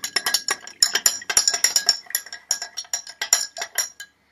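Metal teaspoon stirring liquid in a ribbed drinking glass: quick, irregular clinks against the glass with a light ringing tone, stopping shortly before the end.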